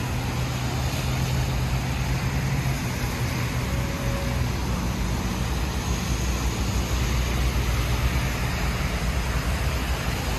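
Heavy rain falling steadily, with a low engine hum from traffic driving through the flooded street underneath.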